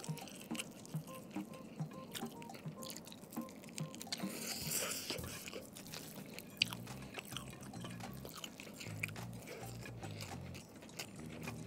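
Close-miked mouth sounds of a person chewing fried mackerel tuna with rice: a stream of small wet smacks and clicks, with a louder crunchy crackle about five seconds in.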